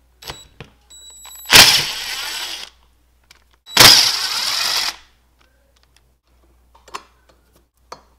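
Power driver spinning a half-inch socket to back the terminal nuts off a winch motor, run in two bursts of about a second each. A few light metallic clicks come between them.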